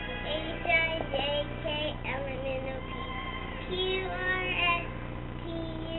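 A child singing a tune in a high voice, with some notes held and sliding.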